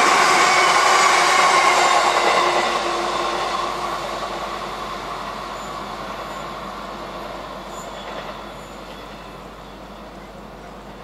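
A train passing on the main line and moving away. It is loud at first with a steady multi-tone hum over the rail noise, then dies down over several seconds.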